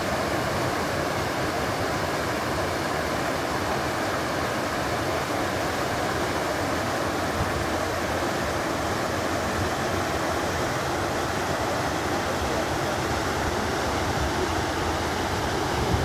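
Small waterfall cascading over rock ledges into a pool: a steady, unbroken rush of falling water.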